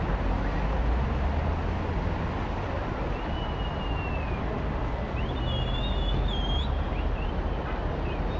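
Steady noise of a large outdoor crowd with a low wind rumble on the microphone. Several high whistles glide and warble over it, one falling slowly about three seconds in and a wavering pair around five to six and a half seconds in.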